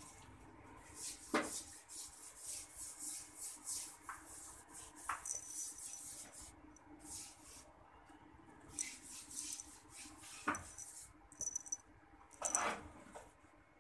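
Rustling and scratching of a long-haired cat shifting and pawing on a fabric cushion close to the microphone, in short irregular scrapes with a few soft knocks, one about a second in and two more later on.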